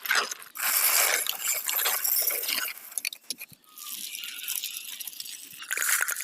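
Rattling, clattering noise of small hard objects, in several bursts full of quick clicks.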